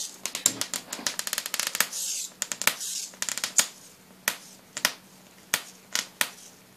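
Jacob's ladder arc from a ZVS high-voltage driver snapping and crackling, with the supply set at 30 volts. It starts as a fast run of crackles, then settles after about four seconds into single sharp snaps roughly every two-thirds of a second, over a faint steady hum.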